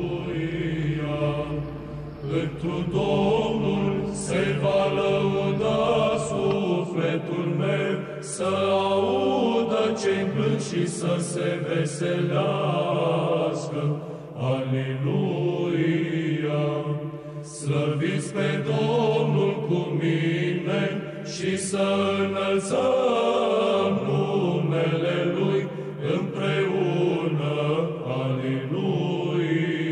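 Orthodox liturgical chant: male voices singing a slow melody over a steady held low drone note.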